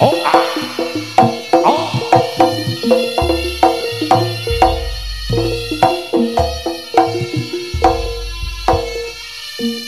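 Jaranan music: rapid drum and percussion strokes over pitched notes, with long, very deep bass notes, a track billed as good for sound-system checks. It thins out near the end.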